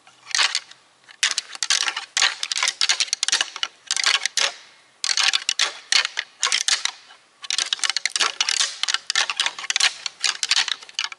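A pair of rattling antlers clashing and grinding together in quick runs of clacking, with short pauses between the sequences. The rattling imitates two bucks sparring, to draw in a buck.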